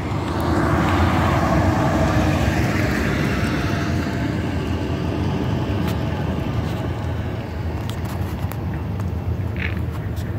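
Steady road and engine noise inside a moving car, with a few faint sharp clicks in the second half.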